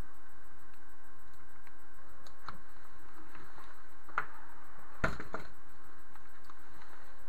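Airsoft skull face mask and helmet being taken off by hand: scattered light clicks and knocks of the gear being handled, with the loudest knocks about five seconds in. A faint steady hum runs underneath.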